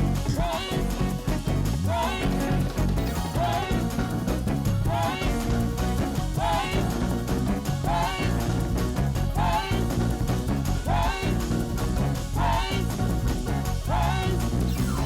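Up-tempo gospel praise-break music with a heavy bass line and a short melodic figure that repeats about every second and a half.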